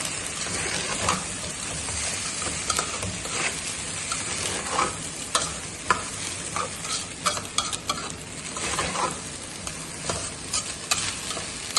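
Spoon stirring and scraping soaked harees grain in a pot over low heat, with a steady sizzle and repeated clicks of the spoon against the pot.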